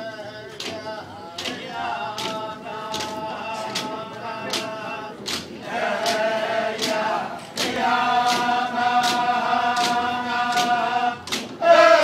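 A group of Inupiaq men singing a chant in unison, with a steady beat on thin, wide frame drums (qilaut). The singing swells louder about six seconds in and again near eight seconds.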